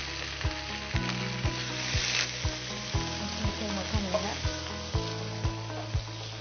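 Ginger and chilli spice paste sizzling in oil in a frying pan while being stirred with a wooden spatula, with a brief louder hiss about two seconds in. Background music with a steady beat of about two thumps a second plays underneath.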